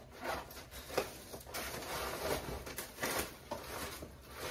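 Plastic bags and wrapping rustling and crinkling as items are handled and packed into a cardboard box, in a string of short, irregular rustles.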